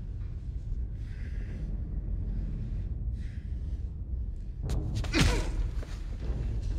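Ragged breathing and a sharp, pained gasp from a badly beaten man. The gasp is the loudest sound, about five seconds in, with fainter breaths before it. A low steady rumble runs underneath.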